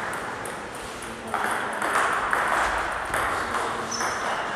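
Table tennis ball ticking in a series of short, sharp clicks as it bounces on a hard surface.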